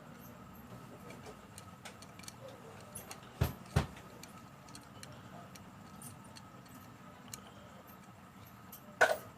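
Small metal repair tools clicking and tapping on a workbench: two sharp clicks close together about three and a half seconds in and another near the end, over a quiet steady background.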